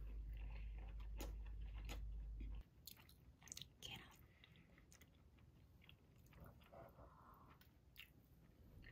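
Faint close-up chewing and biting of topped inari sushi (seasoned fried-tofu pockets of rice), soft mouth sounds with a few small clicks. A low hum cuts off suddenly about two and a half seconds in.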